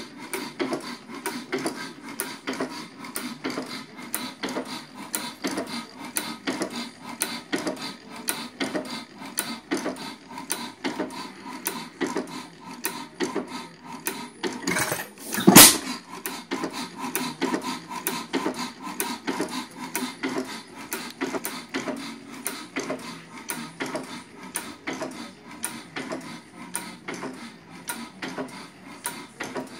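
A 4 HP Ohio sideshaft hit-and-miss engine, first run after restoration, coasting on its spinning flywheels with a rapid, regular clicking of its valve and igniter gear. About halfway through it fires once with a single loud bang, then goes back to coasting.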